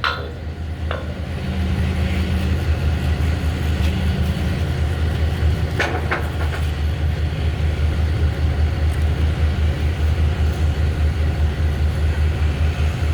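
Steady low machine drone with a fast, even pulse, and two short clicks about six seconds in.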